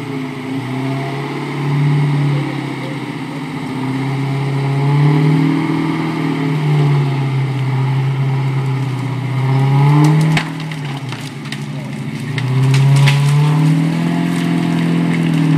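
The V8 engine of a Unimog revving up and falling back several times under load while it drags a bundle of cut branches. Sharp cracks of snapping and crushed branches come a little after ten seconds in.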